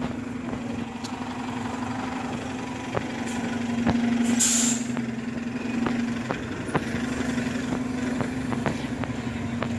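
City bus engine running with a steady low hum, and a short sharp hiss of air released from its air brakes about four seconds in. Footsteps click along underneath.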